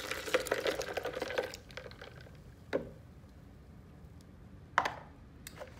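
Fresh juice poured from a plastic container into a Blendtec blender jar over ice, splashing for about a second and a half, then a couple of sharp knocks, the loudest about five seconds in.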